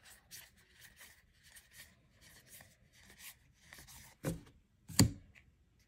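Magic: The Gathering trading cards sliding and rubbing against each other as a stack is flipped through by hand, card by card, with two sharper clicks about four and five seconds in, the second the loudest.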